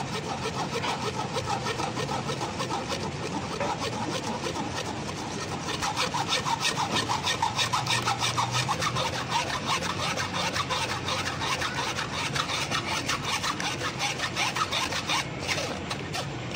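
Metal spoon scraping and rubbing round a fine wire-mesh strainer in a quick, steady rhythm, pushing blended raw-mango juice through the mesh. It gets a little louder about six seconds in.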